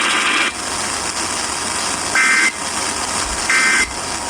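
Emergency Alert System end-of-message data bursts received on FM radio: two short, identical electronic squawks about a second apart, over steady radio hiss. A buzzy hiss before them cuts off about half a second in.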